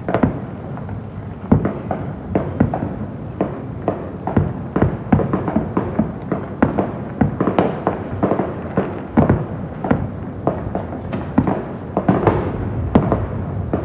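Fireworks display going off in a steady barrage of sharp bangs, several a second.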